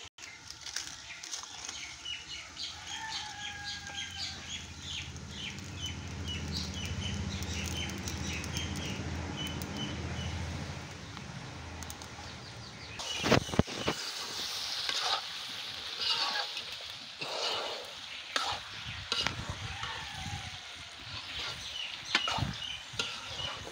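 Chickens clucking with many short high bird chirps, then sharp metal knocks and clatter from a metal lid and a spatula scraping in an iron wok over a wood fire.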